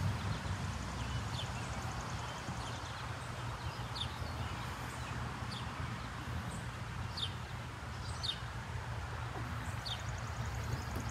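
Birds calling outdoors: a short, high, downward-sliding chirp repeated about once a second, with a fast high trill near the start and again near the end, over a steady low rumble.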